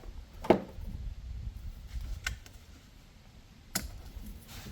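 A few sharp plastic clicks and snaps, the loudest about half a second in, as the protective plastic caps are pulled off a new car battery's terminals, over a low rumble of handling noise.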